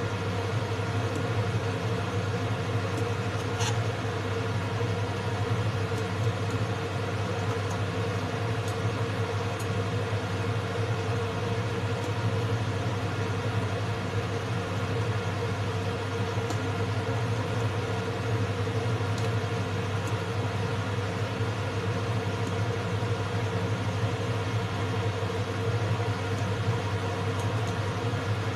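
Steady, even hum of a kitchen fan running, with a few faint clinks of a fork against a stainless steel bowl.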